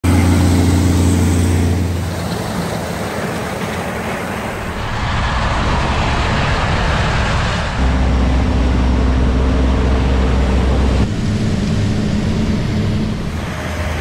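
Diesel engines of harvest machinery running steadily: a Cat Challenger track tractor with a grain cart and New Holland CR combines at work. The engine sound changes abruptly about two, eight and eleven seconds in.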